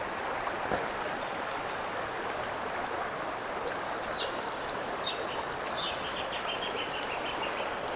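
Steady rush of a fast-flowing stream, with a quick run of faint high chirps in the second half.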